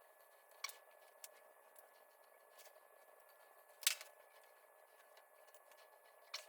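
A few sharp, light clicks and taps of small metal parts and tools being handled, the loudest about four seconds in, over a faint steady hum.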